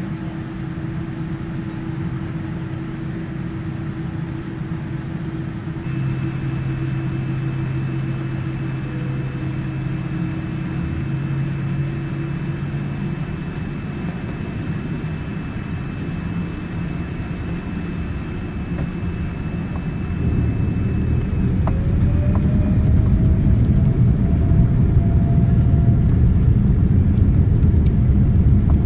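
Boeing 787-9's GE GEnx turbofans heard from the cabin: a steady low hum at low thrust, then about twenty seconds in they spool up to takeoff thrust with a rising whine and a louder rumble. The rise is smooth, with no growl as the power comes up.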